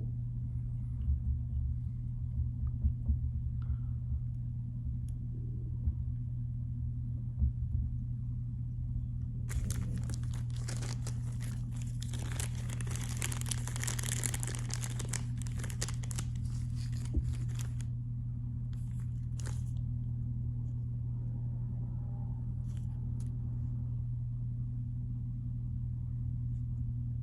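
Steady low hum, with a stretch of crinkling, rustling handling noise from about ten to eighteen seconds in.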